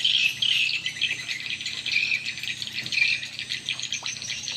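Swiftlets twittering: a dense, continuous chorus of rapid high chirps that swells and fades in waves.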